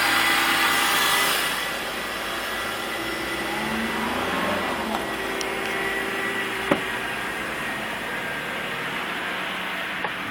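BMW E46 328i's 2.8-litre straight-six engine running on a cold start, a steady whirring whine over the engine sound; this is the cold-start noise the owner is asking about. The sound drops a little about a second and a half in, and there is a single sharp click near the end.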